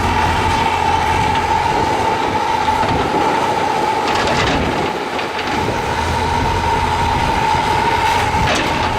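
Heavy tracked construction machinery working: a diesel engine running steadily under load with a constant high hydraulic whine, and a few metallic clanks about four seconds in and near the end.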